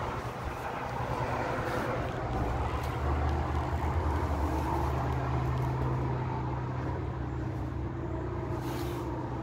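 Road traffic: a motor vehicle's engine and tyre noise swelling to its loudest around the middle and easing off again, over a steady low drone.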